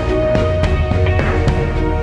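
Instrumental background music with held notes over a steady beat.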